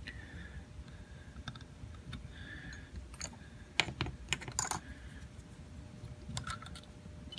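Lock picks working the sliders in the keyway of a Supra-C key safe slider lock: irregular sharp metal clicks, the loudest clustered about four seconds in, with short faint scrapes between.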